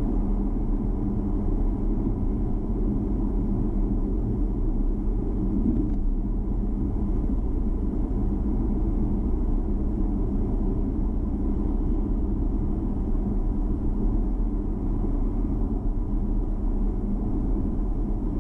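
Steady low rumble of a car driving at road speed: engine and tyre noise heard from inside the cabin.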